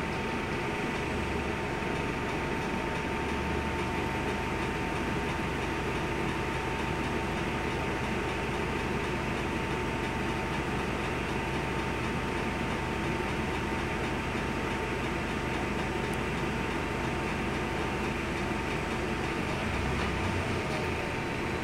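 Steady cabin hum inside a Volvo B5LH hybrid bus standing still: air-conditioning and drivetrain hum with a thin, steady whine.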